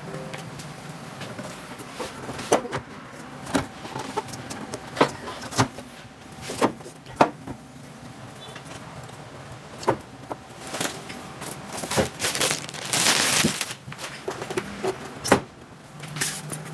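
Handling noise of rack-mount audio units being fitted into a metal-edged flight case: irregular clicks and knocks as the units bump the case and rack rails. About a second of scraping about two-thirds of the way through.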